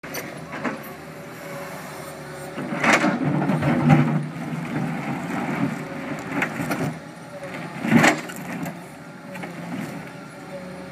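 Tracked hydraulic excavator's diesel engine running steadily while its bucket pushes, grinds and breaks concrete panels, with heavy cracks and knocks of concrete, the loudest about three to four seconds in and again about eight seconds in.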